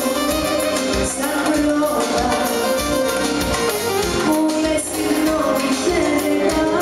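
Live Greek popular music: a woman singing a melody into a microphone over a band with drum kit and bouzouki, keeping a steady beat.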